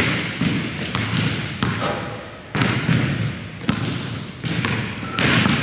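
A basketball being dribbled on a hardwood gym floor, with bounces at uneven spacing that echo around the hall. A few short high squeaks from sneakers on the floor come in between.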